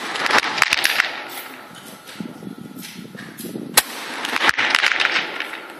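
300 m target rifle shots on a covered firing line. One sharp report about four seconds in is the loudest, with several quieter shots around it, each trailed by a rolling echo.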